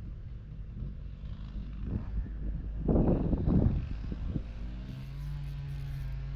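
Wind rumbling on the microphone, with a louder rush about three seconds in. A steady low motor hum sets in about four to five seconds in.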